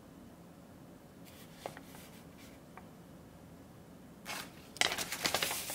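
A folded paper instruction leaflet rustling as it is handled: a few soft rustles, then louder crinkling from about four seconds in.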